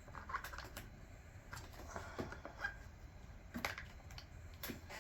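Irregular light clicks and taps of hand tools and small plastic and metal parts, from a chainsaw being taken apart around its intake boot.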